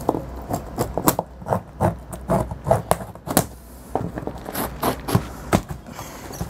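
Cardboard carton being cut open along its taped seam: a run of short, irregular scraping and cracking strokes.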